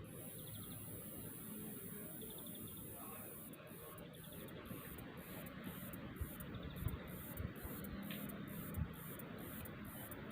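Cicada calling: a high, steady buzz for about the first three and a half seconds, then breaking into a pulsing rhythm of about two pulses a second. A few low thumps come near the middle.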